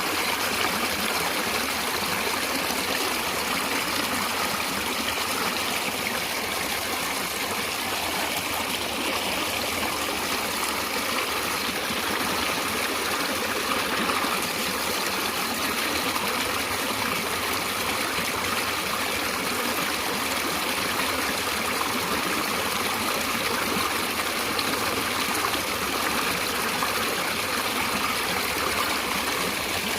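Stream of water running and trickling steadily.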